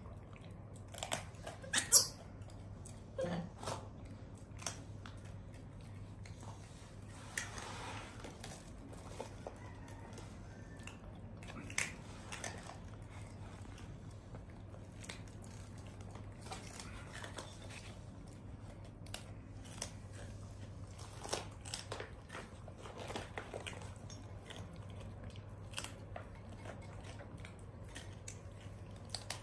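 Baby monkey biting and chewing dried banana: scattered soft crunches, clicks and rustles, with a sharper click about two seconds in.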